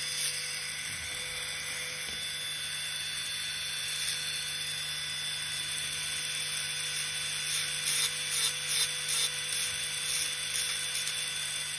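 High-speed dental handpiece with a fissure bur running steadily, bevelling the cavosurface margins of a class V cavity in a plastic typodont incisor. Several brief louder spurts come near the end.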